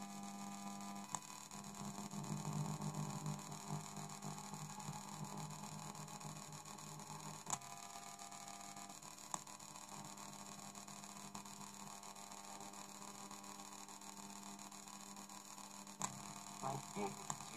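Interference noise from an MP3 player module wired into a cassette deck's amplifier and speakers: a faint, steady hum mixed with several fixed higher tones, broken by a few short clicks. It is the sign of a ground loop between the module's power supply and the deck's audio ground, as the builder thinks.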